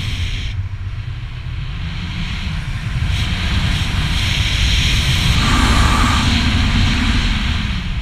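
Wind rushing over an action camera's microphone during a tandem paragliding flight as the wing banks: a heavy, buffeting low rumble with hiss above it, swelling to its loudest about six seconds in and easing near the end.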